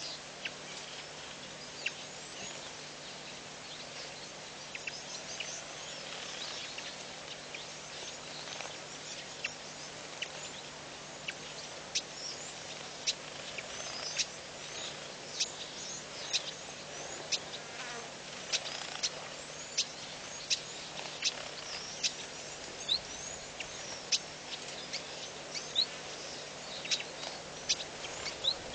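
Bush ambience at a waterhole: many short, sharp, high chirps, coming more often in the second half, over a steady background hiss and a faint low hum.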